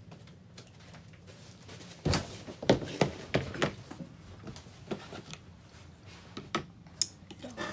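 Irregular knocks and clunks of close handling, a cluster of them a couple of seconds in and a few scattered ones later, over a steady low hum.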